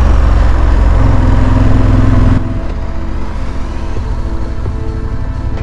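KTM 1190 Adventure R V-twin motorcycle engine running under way, with wind noise over it; a little over two seconds in the sound drops suddenly to a quieter, steadier engine note.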